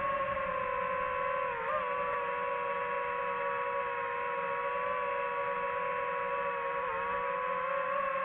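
DJI FPV drone's motors and propellers giving a steady whine, with small brief dips in pitch about a second and a half in and again near the end.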